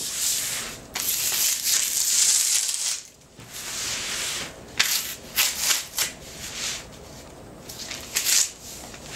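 Dried silk backed with Thai mulberry paper being ripped off binder's board: long tearing rips over the first three seconds, then shorter, sharper tearing and crackling, fading to small tears near the end. The methyl-cellulose-glued paper is pulling free from the board it dried on.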